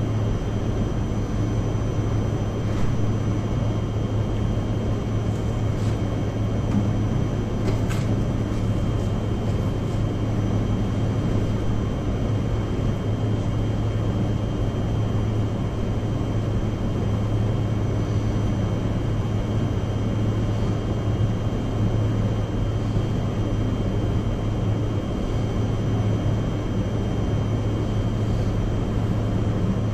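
Biological safety cabinet's blower fan running steadily: an even airflow rush over a low hum, with faint high whining tones. A single light click about eight seconds in.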